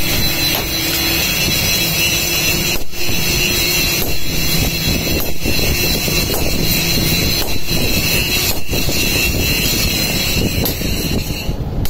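Steady loud whir and hiss of a forge's air blower running, with a few brief dips; the high hiss cuts off near the end.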